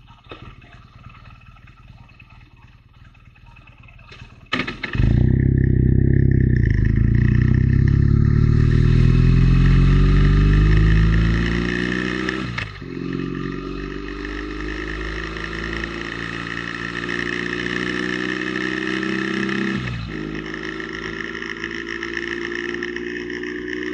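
Motorcycle engine idling quietly, then pulling away hard about four and a half seconds in. Its pitch climbs steadily through each gear, with two upshifts, one near the middle and one near the end.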